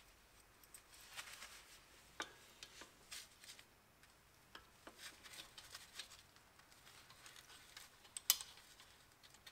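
Pliers and drum-brake hold-down spring hardware clicking and scraping against the brake shoes and backing plate: scattered light metallic clicks, the sharpest near the end.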